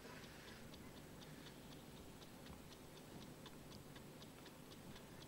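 Faint, steady ticking of a clock, about three ticks a second, over near silence.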